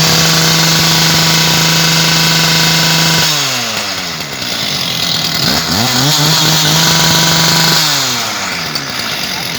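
Small petrol engine of a concrete pile cutting saw revved to full throttle and held for about three seconds, then dropping back. A few seconds later it is revved up and held again for about two seconds before dropping back once more.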